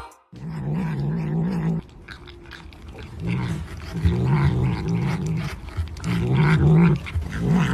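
A cat growling in several low, wavering bouts while it eats from a cup of ice cream, the kind of growl a cat makes to guard its food.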